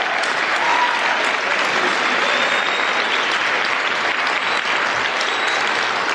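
Crowd of students applauding steadily, with a short shout or whoop about a second in.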